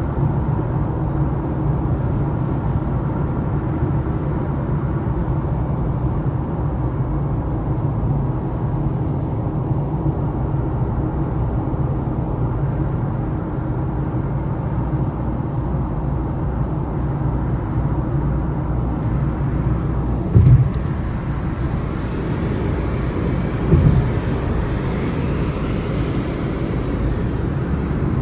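Steady cabin noise of a car driving at motorway speed: a low drone from the tyres and engine. Two short thumps come a few seconds apart in the later part.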